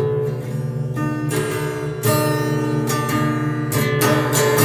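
Acoustic guitar strumming chords, with a fresh strum about once a second and the chords ringing on between strokes.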